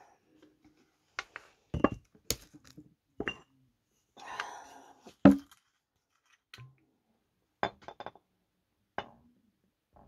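Small glass bottles and a glass jar handled on a table: scattered light clinks and knocks of glass and caps, the loudest about five seconds in, just after a short hiss.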